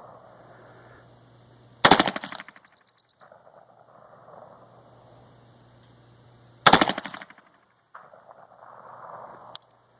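Two single shots from an AR-15 rifle, about five seconds apart, each followed by a short echo.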